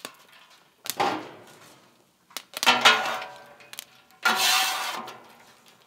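A metal spatula scraping and pushing popcorn across a steel griddle top, in three strokes about a second long each, with a slight metallic ring.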